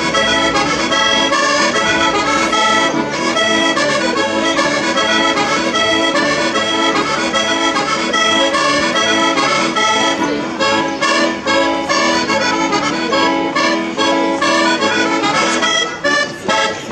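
Accordion playing a traditional folk dance tune, a running melody over regular chord changes. From about ten seconds in the playing turns choppier, with short breaks between notes.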